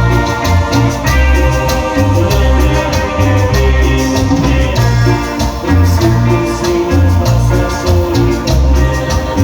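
Latin dance band music with no singing: an electronic keyboard melody over a repeating bass line, drums and shaker percussion, playing steadily.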